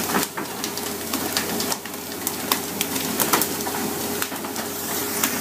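Hiss and splash of water sprayed along the side of a pole-and-line tuna fishing boat, with frequent sharp knocks and slaps and a faint steady hum underneath.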